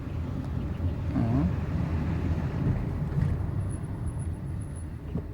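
Chrysler 300C heard from inside the moving car: steady road and drivetrain rumble, with a faint, thin, very high-pitched squeal from the rear brakes for a little under two seconds in the second half. This is the leftover squeal after the rear pads were modified, which the mechanic takes to be inherent to the 300C's heavy car and rear caliper and harmless.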